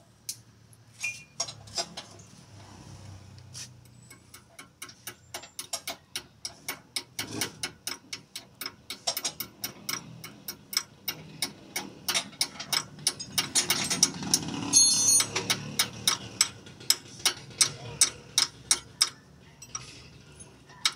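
Hand ratchet wrench clicking through repeated strokes, a long run of sharp clicks about two to three a second that grows louder in the middle and eases off near the end.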